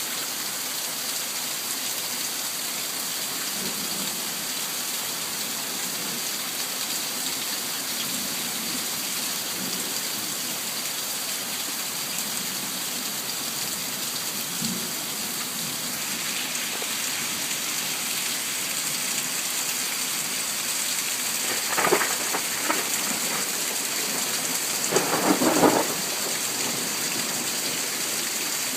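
Steady heavy rain falling, with two loud claps of thunder about three seconds apart late on.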